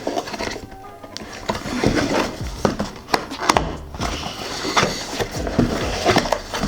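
A cardboard keyboard box being opened and its packaging handled: irregular rustling, scraping and small knocks.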